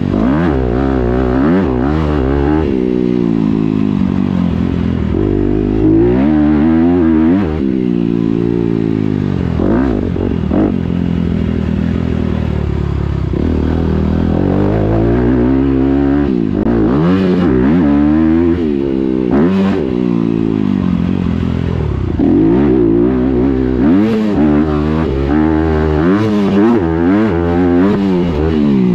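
Dirt bike engine revving hard and easing off over and over while riding a motocross track, its pitch climbing and dropping every second or two, with occasional sharp knocks.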